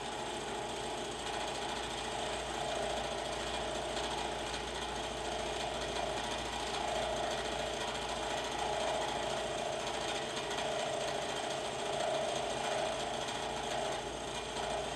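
Two-flute end mill on a vertical milling machine cutting a shallow notch in the end of a 4140 steel block in a conventional milling pass: a steady metal-cutting noise with a fast, even rattle from the flutes over the hum of the spindle.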